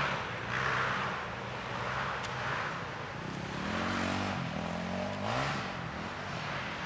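Enduro motorcycle engine running, revved in two rising swells about four and five seconds in, as the stuck bike is worked up a muddy climb.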